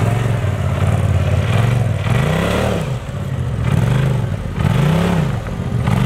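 Polaris RZR side-by-side's engine under load as it crawls over rocks. The engine note holds for about two seconds, then revs up and down four times in quick throttle blips.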